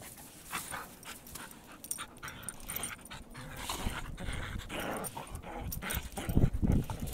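Two dogs play-fighting in snow: scuffling, panting and short growls, with a louder flurry about six seconds in.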